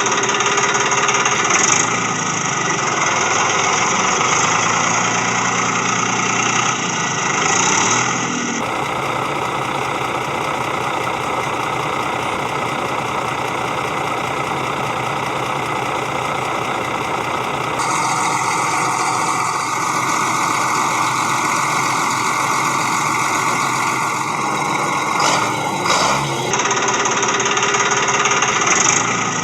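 Small motor of a DIY mini tractor running steadily with a mechanical engine-like rattle. The sound changes abruptly twice, about 8 and 18 seconds in.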